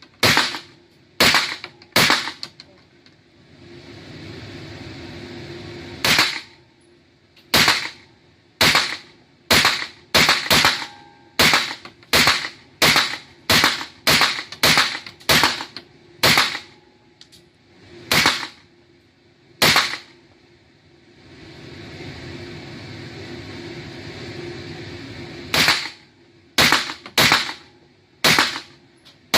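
Sarsılmaz SAR109T 9mm pistol fired semi-automatically: about thirty single shots in strings, roughly one every half second to a second, with two pauses of several seconds. A steady low hum and noise fills the pauses.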